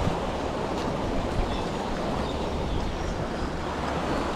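Steady rumble and rushing noise of a small motorized boat underway, with wind on the microphone.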